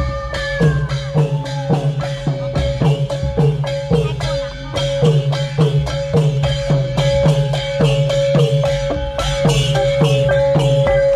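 A procession band of drums and percussion beating a fast, regular rhythm, about three strokes a second, with a steady high note held over the beat and a few bending notes near the start.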